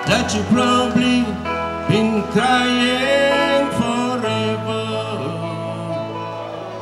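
Live band playing on stage: electric guitar and bass guitar, with a man singing through a microphone.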